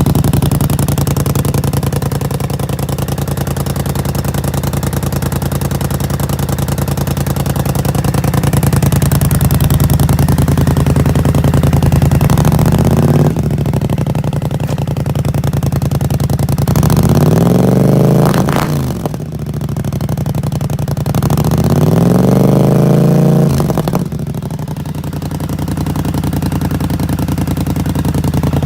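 Polaris Scrambler 850 ATV's twin-cylinder engine idling through a Big Gun Evo U slip-on exhaust, which the owner says is burned out. Twice in the second half the throttle is blipped, and the engine revs up and falls back to idle.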